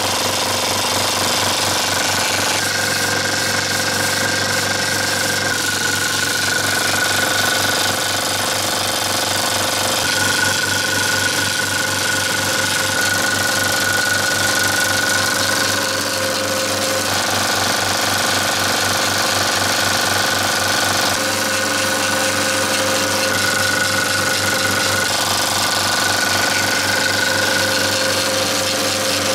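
Zeiss TK35 portable 35 mm film projector running, its film-transport mechanism making a rapid, even clatter with a steady high whine over it.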